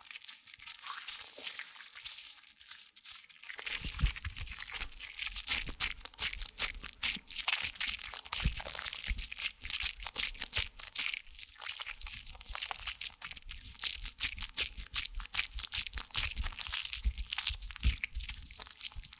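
Hair being scrubbed and rubbed with fingers close to the microphone, as in a shampoo wash: a dense, crackly crunching. It grows louder about three and a half seconds in and carries on busily.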